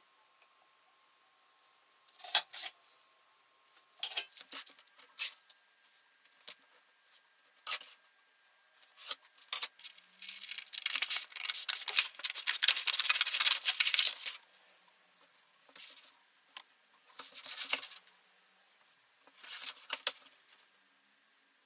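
Hand cutting work: a series of short, crisp snips and rustles, with one longer run of continuous scraping or cutting about ten seconds in that lasts some four seconds.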